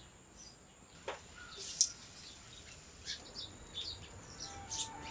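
Birds chirping faintly, with a couple of sharp clicks about a second and two seconds in.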